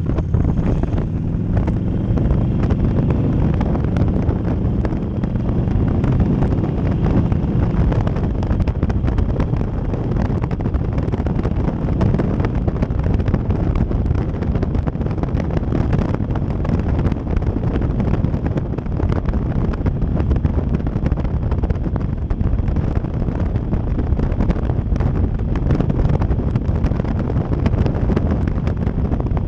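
Harley-Davidson Sportster 1200 Custom's V-twin engine running under way, rising in pitch as it accelerates during the first several seconds and then cruising steadily, with heavy wind buffeting on the microphone throughout.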